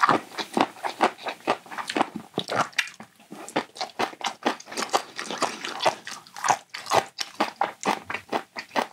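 A person chewing a mouthful of food close to the microphone, with wet, sharp clicks about three to four times a second.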